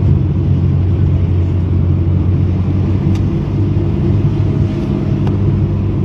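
Car engine and road noise heard from inside the cabin while driving: a steady low drone, with two faint ticks about three and five seconds in.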